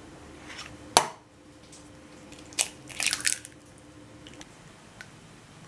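Eggs being cracked on the rim of a ceramic bowl. There is a sharp knock about a second in, then a click and a short crunchy crackle around three seconds in as the shell breaks apart.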